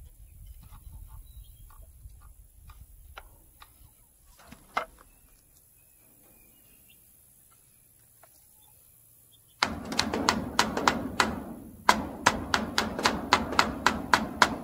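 Hammer striking nails into a wooden 2x4 frame: a quick run of strikes, about four a second, starting near the end and broken by one short pause before it resumes.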